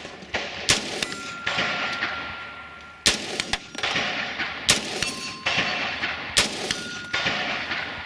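Four rifle shots, a second or two apart, each trailing off in an echoing decay, with thin ringing tones after some of them like struck steel targets.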